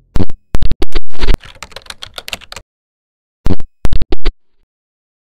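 Glitch-style outro sound effect: very loud, sharp digital clicks and a burst of crackle in the first two and a half seconds, then three or four more clicks about three and a half seconds in.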